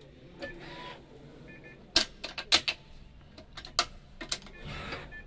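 A quick run of sharp clicks and taps in the middle stretch, about eight in two and a half seconds, as hands handle a freshly strung badminton racket on its stringing machine, with light rustling of the strings before and after.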